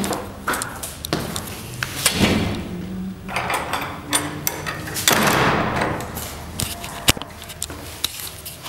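Irregular knocks, clicks and thuds, with two swells of rushing noise, the second lasting about three seconds from a little past three seconds in.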